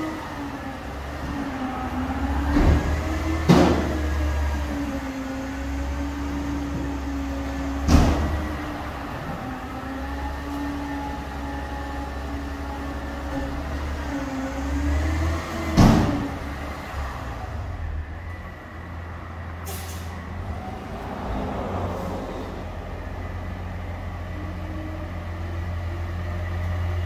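Front-loader garbage truck's diesel engine running with a steady low hum and a wavering whine above it, broken by several sharp metallic bangs about 3, 8 and 16 seconds in. A short hiss comes about two-thirds of the way through.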